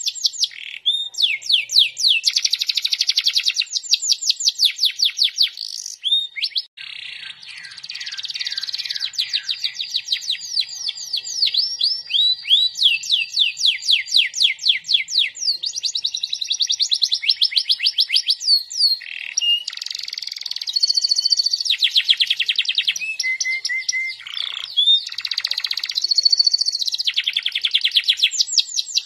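Yellow domestic canary singing a long, unbroken song of fast trills, switching from one rapid run of notes to the next every second or two.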